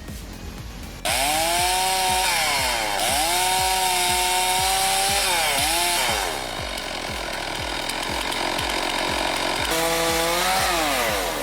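Chainsaw starting up about a second in and running at high revs, its pitch sagging and recovering several times as the throttle is eased and opened or the chain bites into wood.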